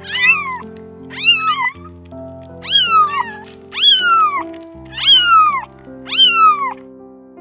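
Young kittens mewing: about six high-pitched calls, roughly one a second, each rising then falling in pitch, with two kittens sometimes calling at once. Soft background music plays underneath.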